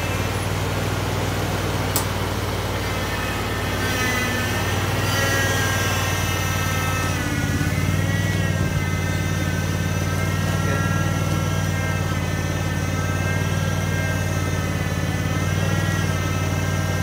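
Engine of a concrete power buggy running steadily while the buggy carries a full load of wet concrete, its pitch wavering slightly about halfway through.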